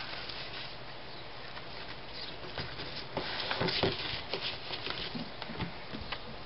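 Paper and cardboard being handled and folded by hand: rustling with scattered light taps and clicks, busiest a little past the middle.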